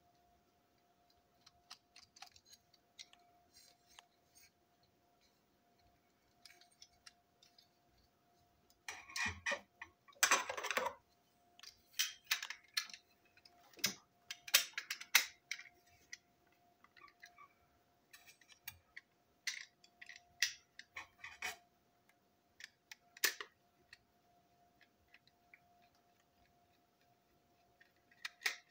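Small clicks, scrapes and rattles of a plastic model railway coach being handled and prised apart with a small screwdriver, coming in clusters, the busiest a third of the way through. A faint steady tone sits underneath.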